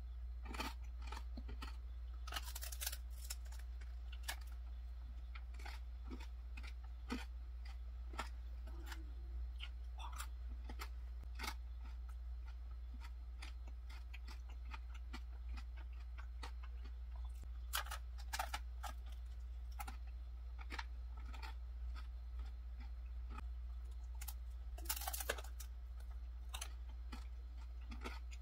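Close-miked eating sounds: bites into a canelé and chewing, heard as many small clicks and crunches, in short clusters near the start, about a third of the way in, and near the end. A steady low hum runs underneath.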